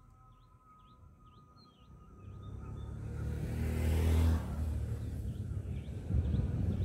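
Small birds chirping over a quiet background, then a motor vehicle's engine and tyre noise swell to a peak about four seconds in and ease off slightly, with the birds still chirping.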